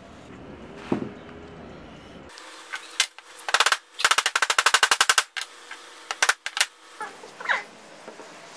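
Rapid series of sharp wooden knocks as the hatchet, held head-up, has its handle rapped on the workbench to seat the head. The knocks come in bursts, the longest lasting over a second at about ten knocks a second.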